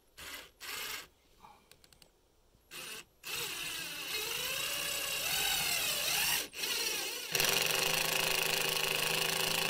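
Cordless impact driver driving a TrapEase composite deck screw through a composite deck board with no pre-drilling. A few short trigger blips come first, then the driver runs for about three seconds with its pitch rising and falling. After a brief break it runs steadily again.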